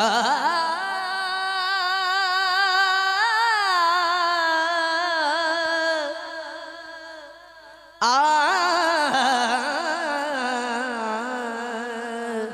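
A man singing a naat, holding long wavering melismatic notes without words: one of about six seconds that fades out, and a second that begins about eight seconds in.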